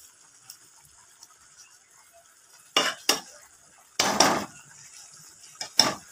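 A spatula knocking and scraping against a cooking pan as thick curry is stirred. Two quick knocks come about three seconds in, a longer scrape follows about a second later, and two more knocks land near the end.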